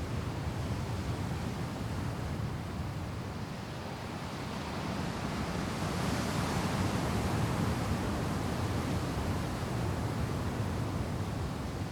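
Ocean surf washing ashore steadily, with one wave breaking and hissing louder from about halfway through before easing off.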